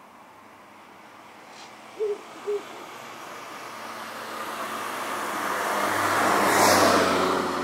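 A passing car whose road noise swells to a peak about seven seconds in and then fades. About two seconds in, two short, low hoots half a second apart come from a Ural owl.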